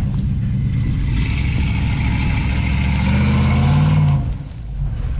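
Pickup truck engine revving hard under load as it pulls on a strap to drag a large tree stump. The revs climb about three seconds in and drop off suddenly about a second later.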